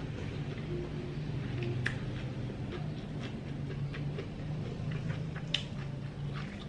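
Close-up chewing of fresh spring rolls: soft, wet mouth clicks and smacks, with two sharper clicks about two seconds in and again later. A steady low hum runs underneath.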